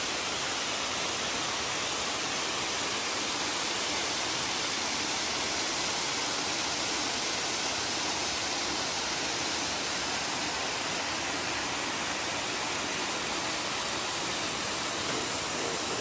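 Waterfall with water falling and splashing: a steady, even rush that holds the same level throughout.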